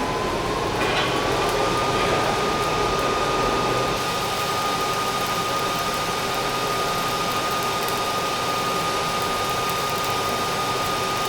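A machine running steadily: a loud hiss with a whine that rises slightly in pitch over the first two seconds, then holds.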